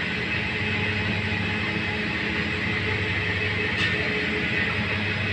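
Steady drone of a commercial kitchen's exhaust hood fan: a low, even hum with a hiss above it, and a light click about four seconds in.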